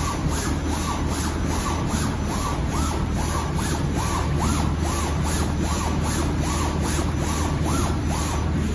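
Garment cutting plotter cutting a row of short slits in kraft paper: its carriage motors give a rising-and-falling whine about twice a second, each stroke with a brief scratch, over a steady low machine hum. The strokes stop near the end.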